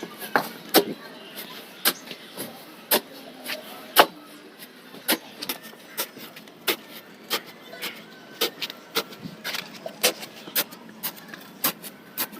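Sharp, irregular knocks and clicks, about one or two a second, from hand-tool work on a building site.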